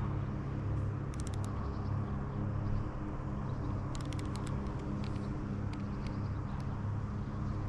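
Camera shutter firing in two quick bursts of about five or six rapid clicks each, one about a second in and one about four seconds in, with a few single clicks later. Under it runs a steady low mechanical hum.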